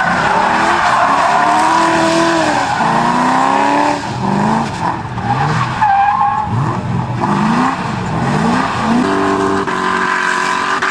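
Car doing donuts with its tyres squealing and sliding, as the engine revs rise and fall over and over. The revving settles to a steady held note near the end.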